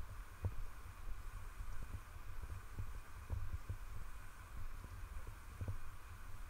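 Irregular dull low thumps and rumble of wind and handling noise on a walking action camera's microphone, over a faint steady hiss.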